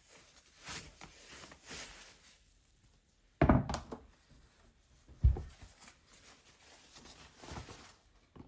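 Handling and rustling noises with two dull thunks about two seconds apart, the first about a third of the way in.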